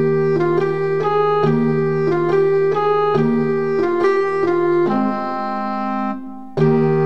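Background music: an instrumental keyboard tune with held organ-like notes changing in a steady rhythm. It breaks off for a moment about six seconds in and starts again.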